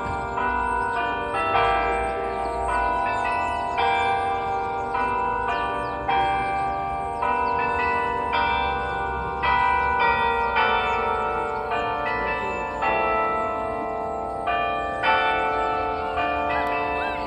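The Delacorte Musical Clock at the Central Park Zoo plays a tune on bells, one struck note after another about once or twice a second. Each note rings on under the next while its bronze animal figures turn.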